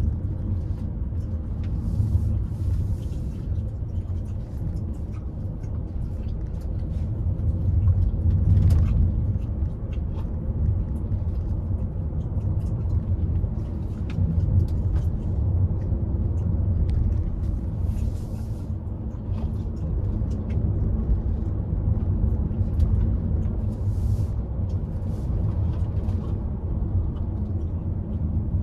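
Car driving along a road: a steady low rumble of engine and tyre noise, with a few brief hissy swells.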